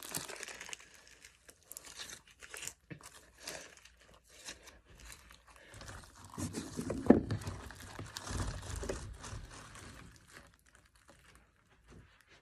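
Slime being squished and stretched by hand: irregular sticky crackles and pops, louder in the middle with one sharp pop about seven seconds in, dying away near the end.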